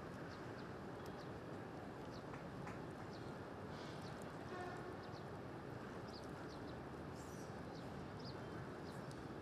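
Steady outdoor background noise, an even low rumble, with faint short high chirps scattered throughout.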